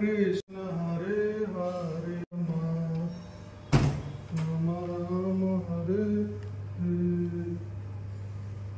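Slow, chant-like singing by one voice in long held notes over a steady low hum, with a single sharp knock about four seconds in.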